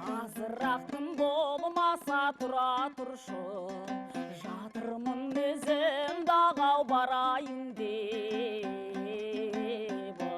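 Kazakh folk song: a voice singing a wavering, ornamented melody over fast strummed plucked strings.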